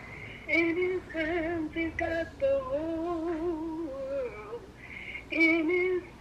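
A woman singing slow, held phrases with a wavering vibrato, heard through a phone's speakerphone.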